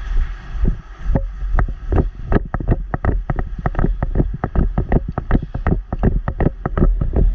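A rapid, uneven series of sharp knocks, about five a second, over a steady low rumble.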